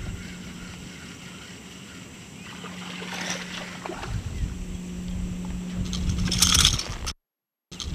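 A hooked largemouth bass splashing and thrashing at the surface about six and a half seconds in, the loudest sound, after a briefer burst of water noise about three seconds in. A steady low hum runs underneath.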